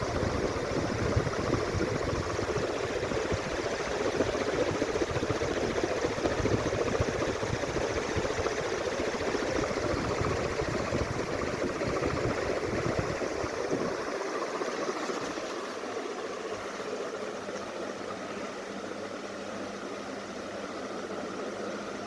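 A 48-inch PBS ceiling fan running, a steady rush of moving air with a low rumble. About two-thirds of the way through the rumble drops out and the sound gets a little quieter, leaving a steadier hiss with a faint motor hum.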